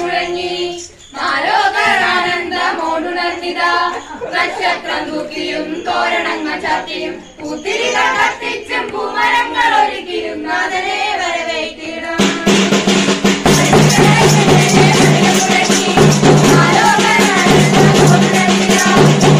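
A voice singing a Christmas carol, then about twelve seconds in a louder carol song with drums and a steady bass line starts abruptly and carries on.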